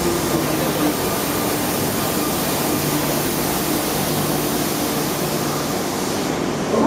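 Tokyo Metro 02 series subway train pulling in alongside the platform and braking to a stop: a steady noise with a low whine that drops a little in pitch at first, then holds.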